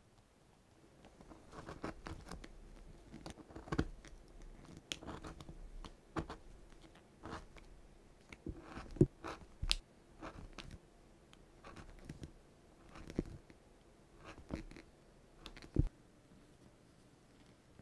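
OLFA leathercraft knife (betsutachi) with its replaceable blade pressing through leather on a cutting mat: a string of irregular crunching cuts and clicks as the leather is trimmed along a curve and handled.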